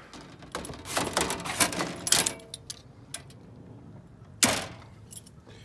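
Metal-framed screen door of a camper van being opened, its latch and frame clicking and rattling, then a single sharp knock about four and a half seconds in.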